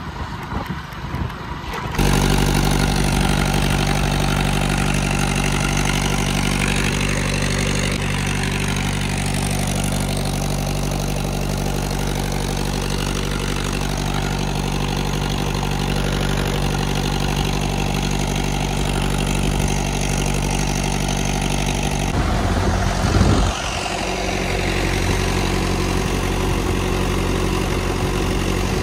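A farm engine running steadily. The note changes abruptly about two seconds in and again about 22 seconds in, with a brief low rumble just after the second change, before a different steady engine note settles.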